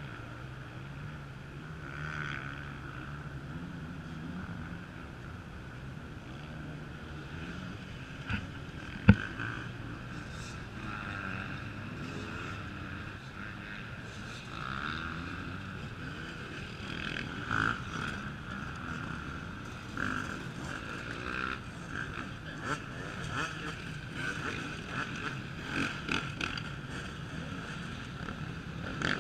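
Off-road racing motorcycle engines revving and changing pitch as bikes ride over a log obstacle, with a single sharp knock about nine seconds in.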